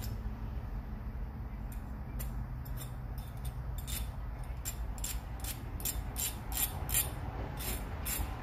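Hand file deburring a freshly cut rough edge in short rasping strokes, a few at first, then about three a second.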